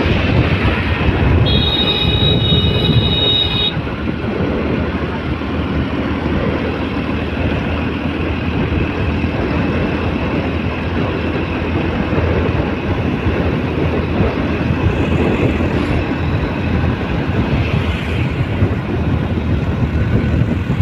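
Steady, loud rush of wind on the microphone and road noise from a two-wheeler riding at highway speed. A high, steady tone sounds for about two seconds near the start.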